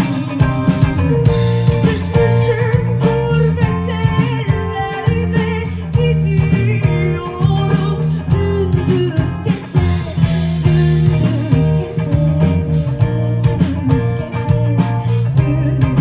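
Live rock band playing: electric guitar, bass guitar and drum kit, with a woman singing over it.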